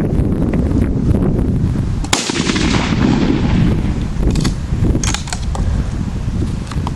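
A .243 rifle shot setting off 2 pounds of tannerite packed in a log: a single sharp blast about two seconds in, followed by a rolling echo that fades over a couple of seconds. Steady wind buffets the microphone.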